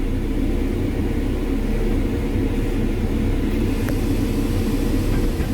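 Cat 312 excavator's diesel engine running steadily under hydraulic load while the boom is moved.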